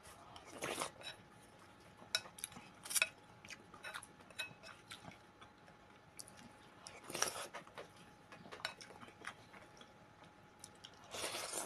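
A person eating soup with a wooden spoon close to the microphone: faint chewing and mouth sounds, with scattered light clicks of the spoon against the bowl and a few short louder swells.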